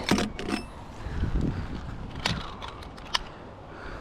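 Metal clicks and clinks of safety lanyard clips being handled as the climber unclips from the line, over the rustle of handling. There is a cluster of clicks near the start and a few more around two to three seconds in.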